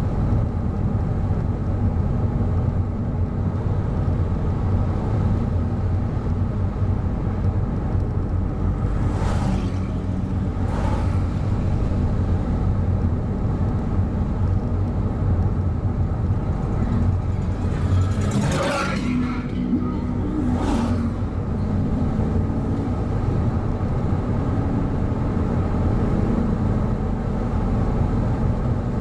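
A car's engine and tyres running steadily on the road while driving, with oncoming cars whooshing past several times, the loudest pass about two-thirds of the way through.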